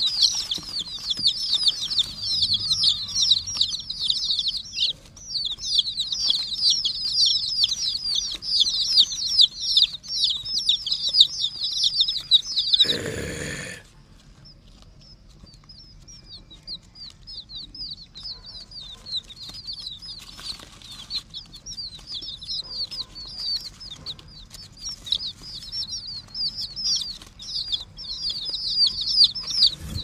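A group of domestic chicks peeping constantly in a dense chorus of short, high, falling chirps. About halfway through, a brief rustling burst covers them. The peeping then thins out and grows louder again toward the end.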